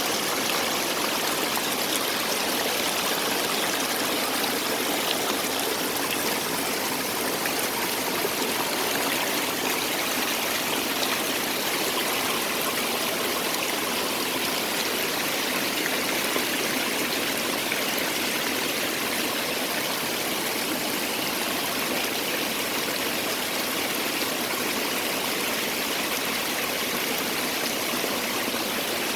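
A small temporary waterfall of typhoon rain runoff spilling from mossy rock crevices and down over dwarf bamboo: a steady, unbroken rush and splash of water.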